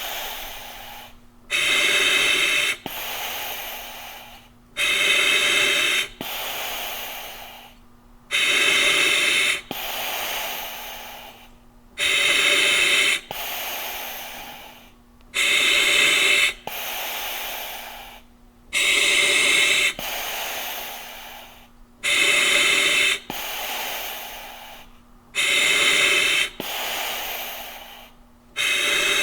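Heavy, rhythmic breathing, one breath cycle about every three seconds: a loud, harsh breath of about a second followed by a longer, fainter hiss that fades away.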